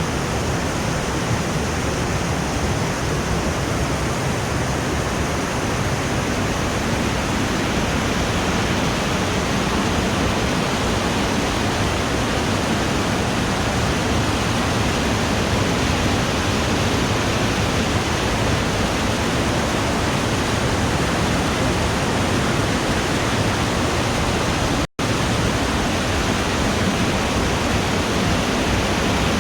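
Waterfall: a steady rush of falling water, broken once by a split-second gap near the end.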